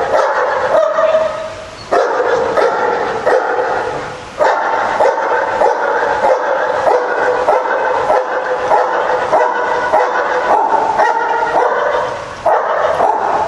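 A dog whining and yipping almost without pause, in quick, repeated high-pitched cries, with brief breaks about two and four seconds in.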